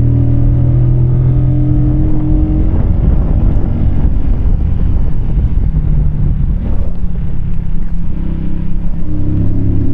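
Keeway K-Light 125 motorcycle's small V-twin engine running while riding, heard from the rider's chest. Its steady engine note turns to a rougher rumble a few seconds in and comes back clear near the end.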